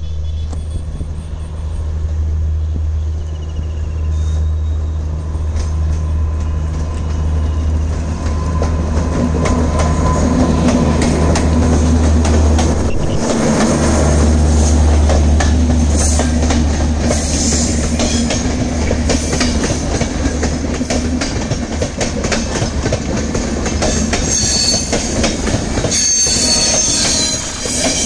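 Electric locomotive and LHB Rajdhani Express coaches passing close at speed: a continuous heavy rumble as the locomotive goes by, then the coaches rolling past with rail clatter and high-pitched wheel squeal from the curve.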